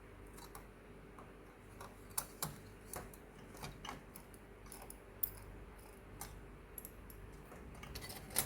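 Small screwdriver working screws out of a graphics card: faint, irregular light clicks and ticks of metal on metal, with one sharper click a little after five seconds and another near the end.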